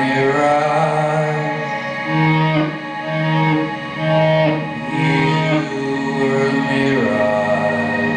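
Live band music played on electric guitar and other instruments: sustained droning tones over a low note repeating about once a second.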